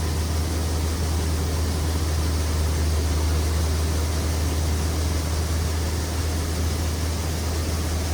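A heavy engine running steadily: a deep, even hum under a broad rush of mechanical noise.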